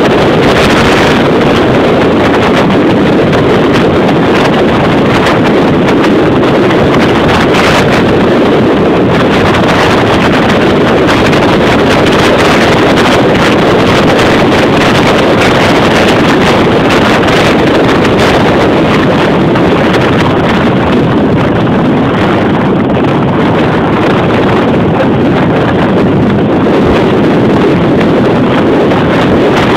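Loud, steady rush of wind over the microphone from the speed of a bicycle descent, with constant gusty buffeting.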